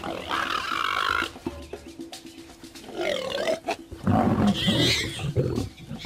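Warthogs squealing under a lioness's attack: short high squeals near the start and about three seconds in, then a louder cry with a low growl about four seconds in.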